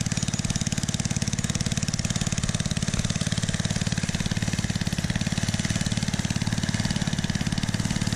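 Alcohol-fuelled junior dragster's high-horsepower Briggs & Stratton single-cylinder engine running on straight open exhaust, a steady rapid chug of even firing pulses at an idle.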